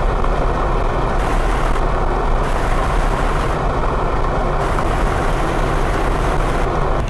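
Steady rush of wind and road noise from a pickup truck driving at speed, heard with the microphone held at the open window, over a low steady engine hum.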